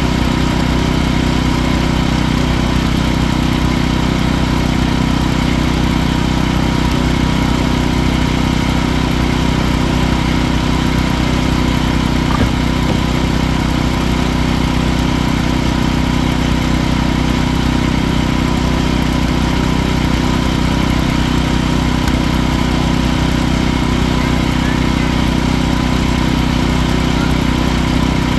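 Wood-Mizer portable sawmill's engine running steadily while its band blade saws lengthwise through a large log.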